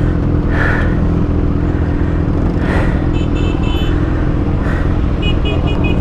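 Kawasaki ZX6R's inline-four running at a steady engine speed through an Austin Racing GP1R aftermarket exhaust, neither revving nor dropping. A rapid run of short high beeps comes in about halfway through and again near the end.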